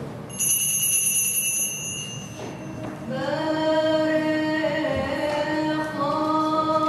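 A high ringing tone lasting about two seconds, then a group of voices singing one long held note, with a higher voice joining near the end.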